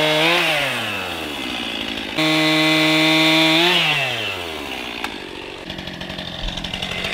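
Chainsaw cutting through the end of a log at full throttle. The engine note drops as the throttle is let off about half a second in, jumps back to full revs for a second pass just after two seconds, then winds down to a low idle.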